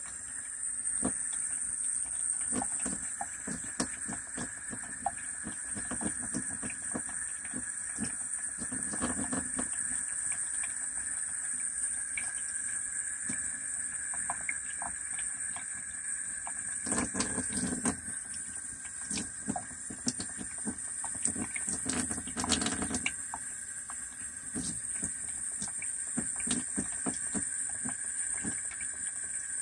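Kitchen-style sink faucet running a thin stream of water that splashes into the basin and onto a cat, a steady hiss with scattered drips and patter.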